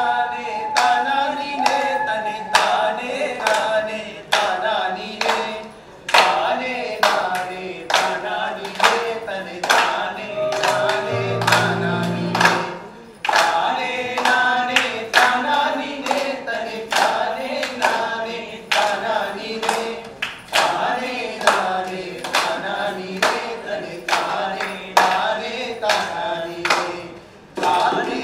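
Group singing a song over music with a steady, sharp beat of about two strokes a second.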